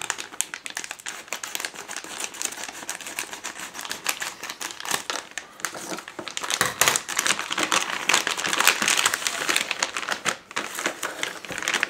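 A shiny metallized plastic bag crinkling and crackling as it is handled and cut open with scissors, a dense run of small crackles.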